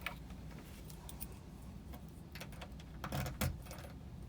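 Small metallic clicks and rattles as a Hafele Symo lock cylinder is handled and fitted into its hole from the back of the door, with a louder cluster of clicks about three seconds in.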